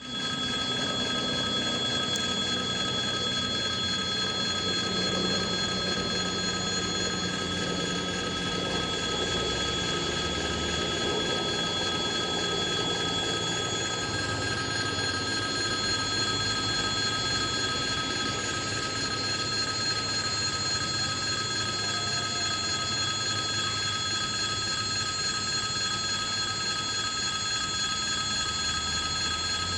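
Passenger train hauled by a 2ES4K electric locomotive running on the line, with a steady low rumble of wheels on rails that shifts slowly. Several steady high-pitched tones sound over it throughout.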